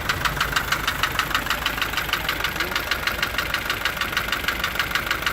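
Isuzu light truck engine idling with a rapid, even ticking of about eight to ten strokes a second that never lets up, a noise whose source the owner cannot trace.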